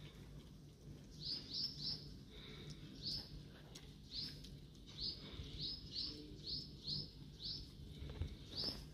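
A small bird chirping over and over: short, high chirps, often one or two a second and sometimes in quick runs of two or three, over a steady low background hum.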